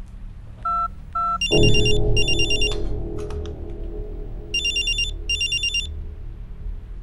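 Two short keypad beeps from a cordless phone being dialled, then a smartphone ringtone of high trills, sounding as two pairs of bursts with a pause between them. A deep music hit lands with the first ring and fades.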